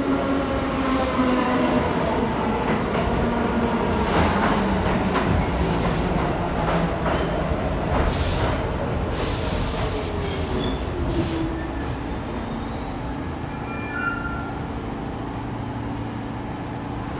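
R46 subway train pulling into a station and braking to a stop. Its motor whine falls steadily in pitch, the wheels clack and rattle, and there are bursts of high hiss about halfway through. Once it has stopped, near the end, it settles to a steady hum.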